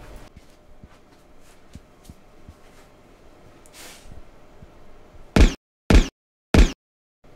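Three short, very loud sound-effect hits about half a second apart, separated by dead silence, a little over five seconds in. Before them there is only quiet room tone with a few faint clicks.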